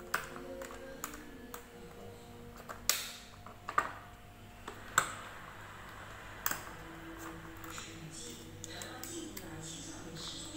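Hard plastic clicking and knocking as toilet-seat hinge fittings are handled and pressed together: five or six sharp clicks at uneven intervals, with light rattling between them.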